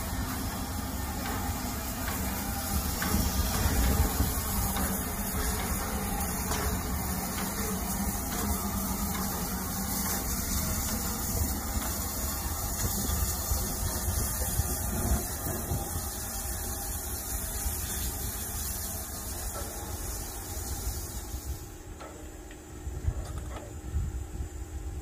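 Narrow-gauge steam tank locomotive 99 7239-9 of the Harz railways' class 99.23–24 moving slowly with its train, steam hissing and wheels rumbling on the rails. About 22 s in the sound drops sharply to a quieter hiss, with a few knocks near the end.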